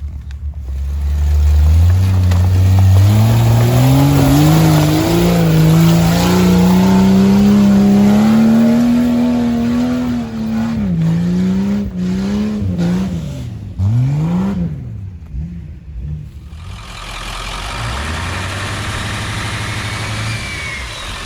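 Off-road vehicle engine accelerating, its pitch climbing steadily for several seconds, then revved up and down a few times. After a sudden break near two-thirds through, an engine runs steadily at lower revs.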